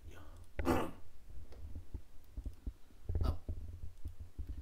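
Computer mouse clicking a few times, with two short louder breathy noises, one about half a second in and one a little past three seconds.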